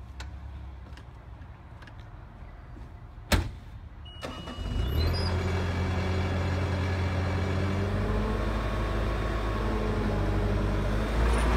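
A sharp knock, a short high beep, then a Bobcat skid steer's engine starting about four and a half seconds in and running steadily.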